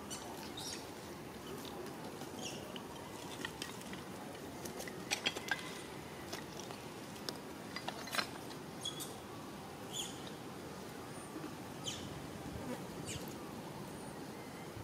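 Outdoor ambience: a steady buzzing haze, like flies or insects, with short high chirps every second or two and a few sharp clicks, the clearest about five and eight seconds in.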